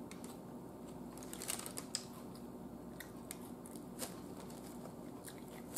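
Faint scattered clicks and crinkles of a sandwich being handled and set down on its paper wrapper, with a few sharper ticks.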